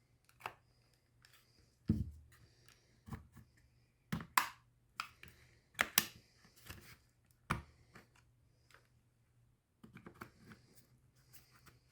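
Plastic retaining tabs of a VW Touareg window switch panel being pried with a tool: scattered sharp clicks, taps and short scrapes, a handful of them louder. A faint low hum runs underneath and stops about ten seconds in.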